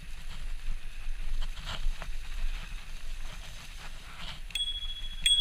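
Bicycle in motion with a low rumble and light rattling, then a bicycle bell rung twice near the end, two sharp dings a little under a second apart with the ring hanging on.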